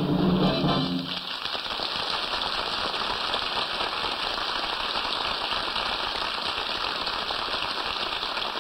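Studio audience applauding steadily on a 1949 radio broadcast recording, while the orchestra's final chord dies away in the first second.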